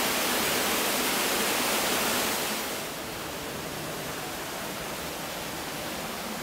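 Man-made waterfall rushing steadily, heard from a rock grotto behind the falling water. About two and a half seconds in, the rush drops to a softer, duller level.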